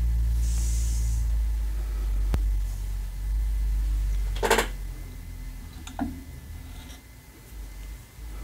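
A low steady rumble, heavier at first and easing after about a second and a half. Over it comes a sharp click, then a short rasping swish about halfway through and a smaller one about a second and a half later: thread being drawn through cross-stitch fabric.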